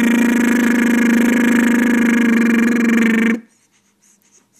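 A man's voiced lip trill, the 'motorboat' brrrr noise, held loud and steady at one pitch, cutting off abruptly about three seconds in, followed by a few faint small clicks.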